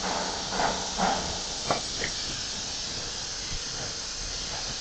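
Steady hiss of compressed air from the mask machine's pneumatic air lines, with a couple of short clicks about two seconds in.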